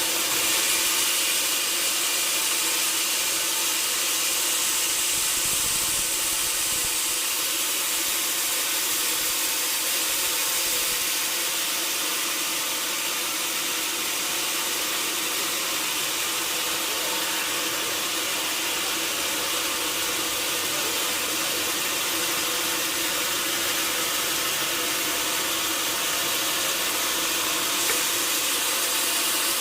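Sawmill saw machinery running steadily: a continuous hissing noise with a steady hum underneath, unchanging throughout.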